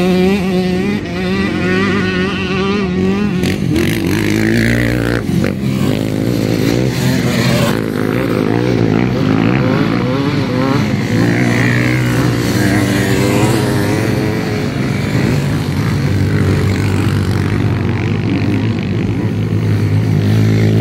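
Off-road enduro motorcycles riding past on a dirt track, their engines revving up and down, several bikes overlapping.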